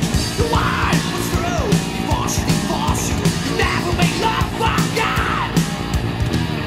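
Thrash metal song with shouted vocals over electric guitars and fast drums; the vocal line drops out near the end.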